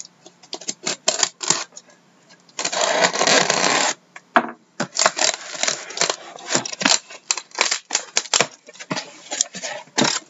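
A sealed cardboard shipping case being cut and opened: a long rasping stretch of tape and cardboard being cut, about two and a half seconds in, then a run of clicks, scrapes and rustles as the flaps are pulled open and the case is handled.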